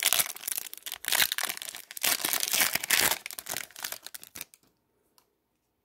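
Foil wrapper of an Upper Deck hockey card pack crinkling in the hands as the pack is torn open and the cards are pulled out. The crackling stops about four and a half seconds in.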